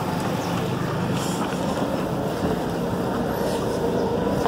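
An engine running steadily, an even hum with a fast throb underneath that holds without revving.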